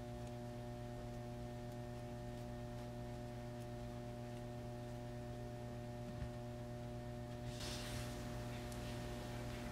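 Steady electrical mains hum, with a faint rustle near the end as double-sided tape is pressed along a seal strip.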